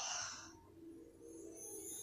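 Faint background music from a TV drama soundtrack, with a soft breathy sound that fades in the first half-second before a quiet held tone sets in.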